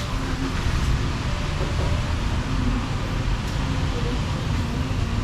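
Steady road traffic noise: a constant low rumble of passing vehicles with a faint engine hum.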